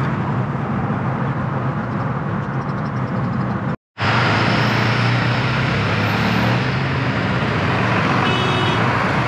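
Steady engine and road noise of a car driving, heard from inside. About four seconds in it cuts off abruptly and comes back as a louder, fuller vehicle drone.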